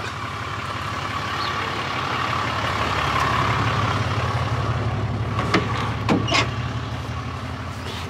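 A tow truck's engine being cranked over by its starter, a long continuous crank that swells and then eases, as the crew try to start a truck that won't start, using starter fluid.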